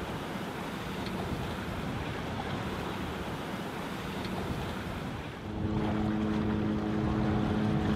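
Wind and water rushing past a sailboat under way. About five and a half seconds in, this gives way to a louder, steady boat engine drone as the boat motors.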